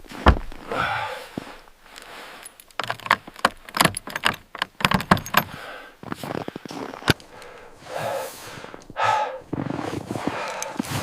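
A rapid, irregular run of sharp knocks and clicks, densest in the middle, with a couple of short breathy sounds.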